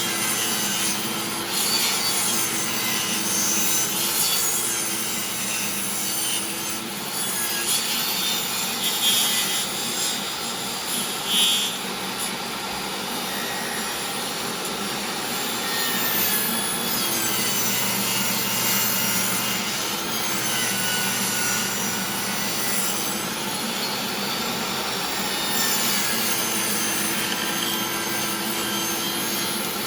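An old, loud DeWalt table saw runs continuously while its blade grinds into the face of a wooden board. The board is being turned over the blade to cut out a disc. A steady motor hum sits under uneven cutting noise.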